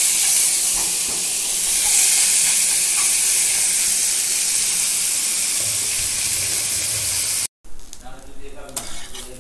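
Small amudi fish, coated in salt and turmeric, sizzling loudly in hot oil in a flat frying pan as they are laid in. Near the end the sound cuts off abruptly and comes back quieter, with a few sharp clicks.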